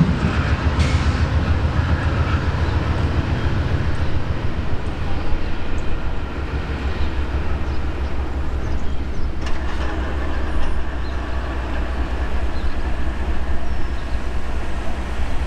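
A freight train running along the track: a steady low rumble with wheels clattering over the rails, easing a little about six seconds in.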